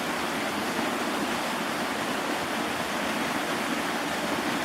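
Waterfall: a steady rush of falling and splashing water.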